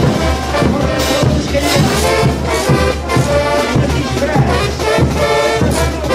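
Brass band playing a morenada: massed brass melody over a steady drum beat.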